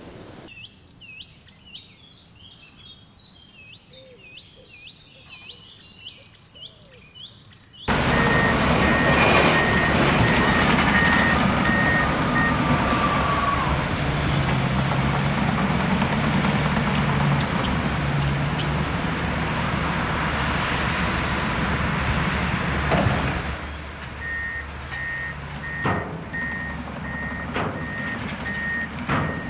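Small birds chirping. About eight seconds in, this cuts suddenly to earthmoving machinery and a dump truck running, with a reversing alarm beeping about twice a second, stopping and then starting again near the end.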